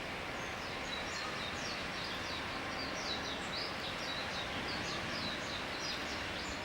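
A small bird giving a rapid series of short, high, falling chirps, several a second, over a steady background rush.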